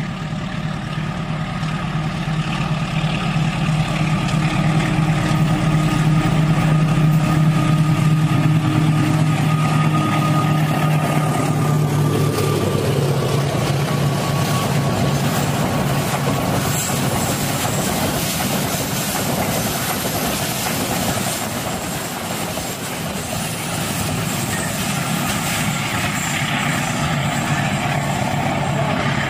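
Diesel locomotive's engine running as it approaches and passes, followed by a long train of freight wagons rolling by. The engine tone falls away about twelve seconds in, leaving the rumble and clatter of the wagons.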